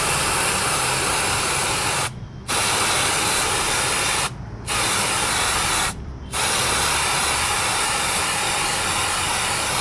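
Aerosol cleaner spray hissing onto a motorcycle air filter in long bursts, with three short pauses.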